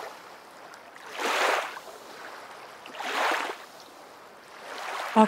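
Water sloshing in two swells about two seconds apart, over a faint steady wash of water.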